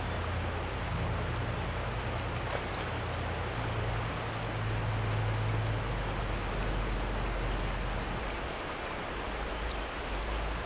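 Steady rushing hiss of a fast trout stream running high, with a low rumble underneath that eases after about six seconds.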